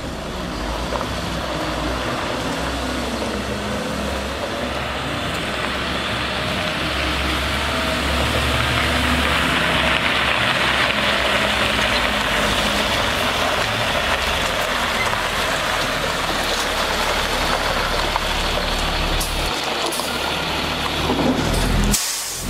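Caterpillar C7 diesel of a Ford F750 water truck running in first gear while its PTO-driven pump sprays water from the spray heads: a steady hiss of spray over the engine, growing louder over the first several seconds as the truck comes closer.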